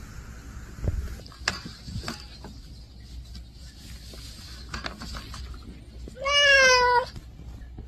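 A domestic cat shut in a cage meows once, a single drawn-out meow near the end that wavers slightly in pitch. A few faint clicks come earlier.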